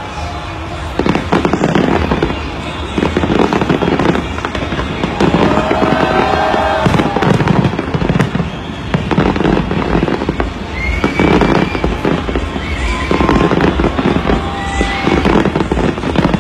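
Aerial fireworks display going off in a dense, continuous barrage of bangs and crackles, starting about a second in and keeping up without pause.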